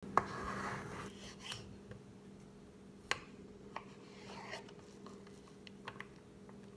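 Kitchen knife slicing through a raw zucchini on a wooden cutting board: a rasping cut in the first second, then a few sharp knocks of the blade on the board, the loudest about three seconds in.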